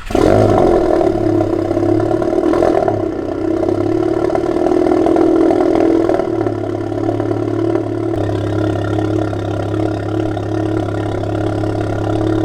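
Cold start of a Volkswagen Golf GTI Mk7's turbocharged 2.0-litre four-cylinder through an aftermarket downpipe and catback exhaust: it catches at once and runs a loud, steady high idle, easing slightly lower about eight seconds in.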